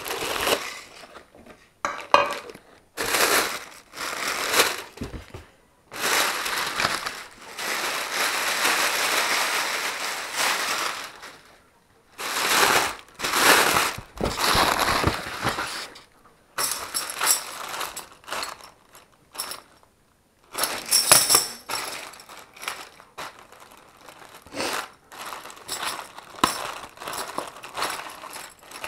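Plastic bags and air-cushion packing rustling and crinkling in irregular bursts as they are handled in a cardboard box, with one longer stretch of steady rustling.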